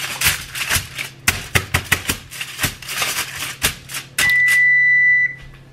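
Aluminum foil crinkling and crackling as it is crumpled and pressed around a metal baking sheet. About four seconds in, a single high electronic beep sounds for about a second and cuts off.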